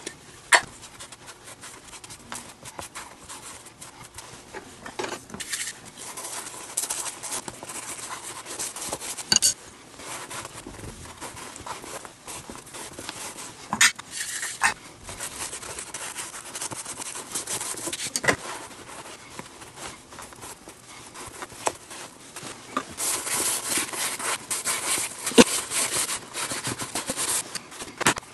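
Small sponge applicator rubbing glove grease into the dry leather palm of a Mizuno Global Elite junior baseball glove, with a few sharp knocks from handling the glove. The rubbing grows busier and louder in the last few seconds.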